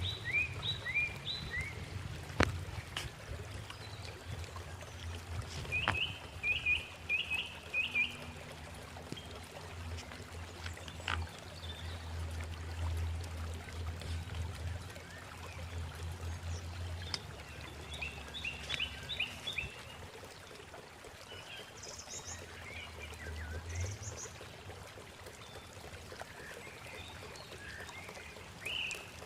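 Small birds chirping in quick runs of short calls, several times over, above a steady low rumble and outdoor background noise.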